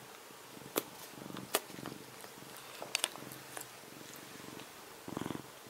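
Domestic cat snoring in its sleep: several rasping breaths in a row, the strongest near the end. A few sharp clicks come in between, the loudest about a second and a half in.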